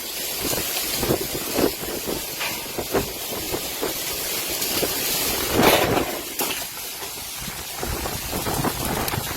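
Storm wind blowing in uneven gusts, a steady rushing hiss with surges, the strongest gust about six seconds in.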